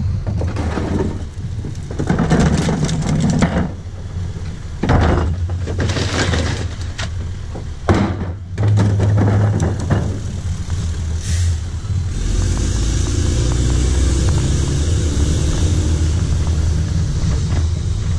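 Rear-loader garbage truck's diesel engine running while bins of recyclables are tipped into the hopper, cans, bottles and cardboard clattering in several bursts during the first ten seconds. From about twelve seconds in the engine sound turns steady and louder.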